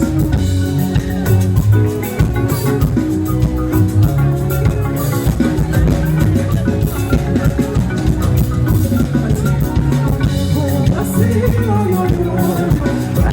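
Upbeat music with a steady drum beat, guitar and some singing.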